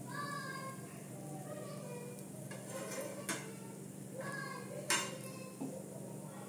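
Quiet kitchen background: a steady low hum with brief high-pitched tones, and two sharp utensil clinks about three and five seconds in.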